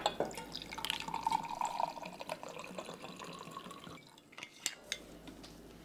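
Liquor poured from a bottle into a glass tumbler, gurgling steadily for about two seconds before tailing off, then two light clicks.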